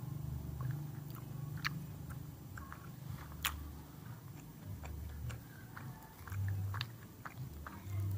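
A person chewing a mouthful of sate kojek close to the microphone, with many small wet mouth clicks scattered through.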